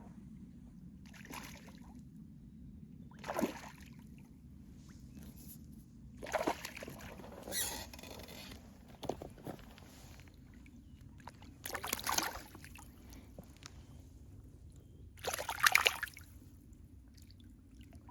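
Water splashing and sloshing in several separate bursts a few seconds apart, the loudest near the end, over a low steady rumble.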